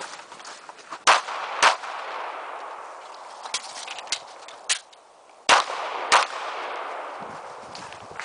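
Gunshots fired in two quick pairs, one about a second in and one about five and a half seconds in, each shot followed by echo. Fainter sharp clicks fall between the pairs.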